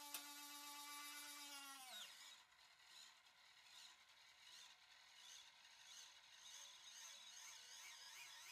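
Small electric motor of an RC landing gear actuator tilting a toy dump truck's bed, with a faint steady whine that drops in pitch and stops about two seconds in. A fainter wavering tone comes in near the end.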